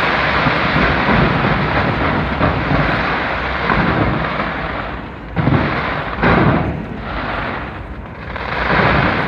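Fireworks display going off: a dense, continuous barrage of bursts, then two separate loud booms about five and six seconds in, and another swell of bursts near the end.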